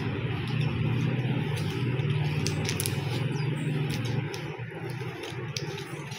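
Hand-held vegetable peeler scraping the skin off raw green mangoes in short strokes, with light crackles and clicks from the peel. A steady low hum runs underneath and fades about four seconds in.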